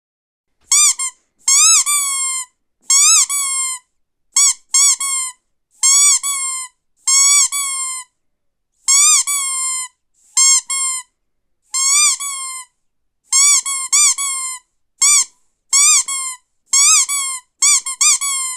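Rubber squeaky dog toy squeezed over and over. Each squeeze gives a short high squeak that rises and falls in pitch. The squeaks come mostly in quick pairs or threes, with short silent gaps between the groups.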